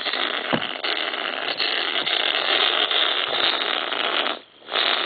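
Loud radio static hiss, breaking off briefly near the end before resuming.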